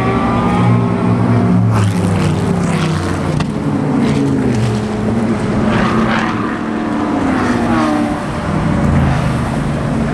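Race car engines running at high revs as cars pass, their pitch sliding up and down.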